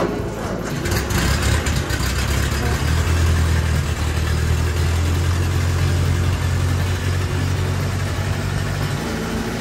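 1947 Ford 2N tractor's four-cylinder flathead engine starting and running, its sound coming in suddenly at the start. A steady low throb runs through the middle and eases off near the end.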